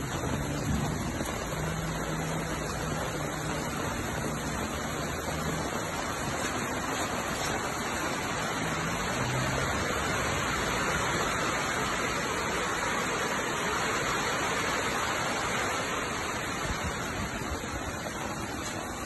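Heavy rain falling steadily, an even hiss with no breaks, and a faint low hum underneath in the first half.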